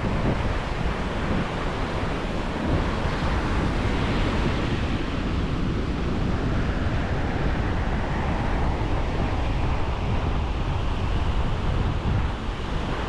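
Ocean surf washing steadily onto a sandy beach, with wind buffeting the microphone in a low, fluttering rumble.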